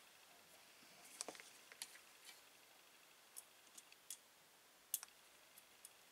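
Faint, irregular small clicks and ticks of fingers handling a CCFL backlight lamp's wire and rubber end pad against its metal lamp channel.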